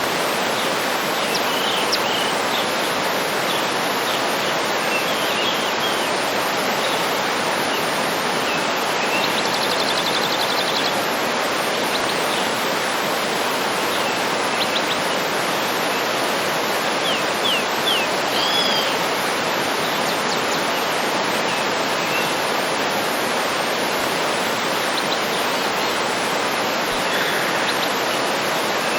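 A waterfall rushing steadily, with small birds chirping and trilling now and then over it.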